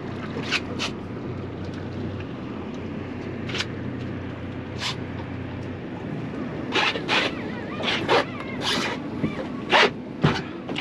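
Boat's outboard motor running at idle with a low steady hum that drops away about six seconds in, with scattered sharp clicks and knocks, coming thicker in the last few seconds.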